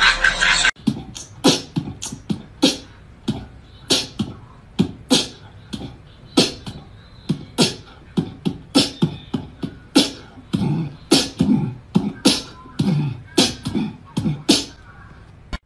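An irregular run of sharp clicking taps, each with a low thump under it, roughly two a second. They follow a loud burst of sound that cuts off under a second in.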